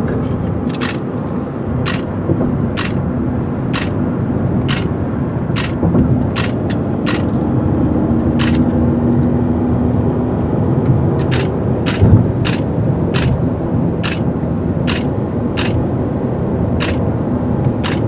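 A still camera's shutter clicking about once a second, shot after shot, over the steady road and engine noise inside a moving car.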